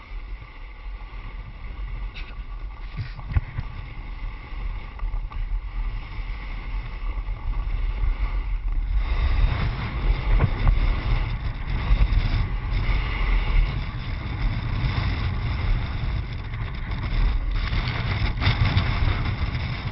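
Skis scraping and hissing over firm snow during a fast downhill run, with wind buffeting the GoPro's microphone in a low rumble. It grows louder from about nine seconds in as the skier picks up speed.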